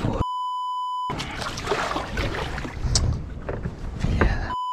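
A flat electronic beep lasting under a second, then a few seconds of rumbling wind-and-water noise on a sailboat with a few sharp knocks, and a second identical beep near the end.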